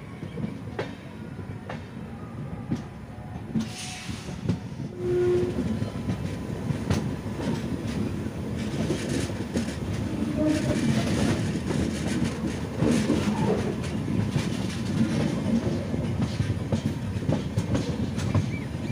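Passenger express train rolling out of a station and picking up speed: coach wheels clattering over rail joints and points, the clatter growing louder, heard from an open coach doorway.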